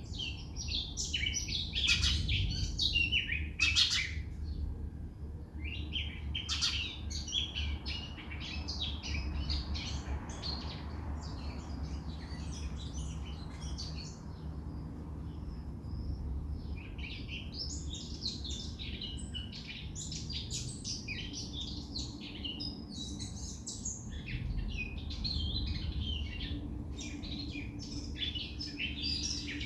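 Many small birds chirping and twittering in a dense chorus, thinning briefly about halfway through, over a steady low rumble.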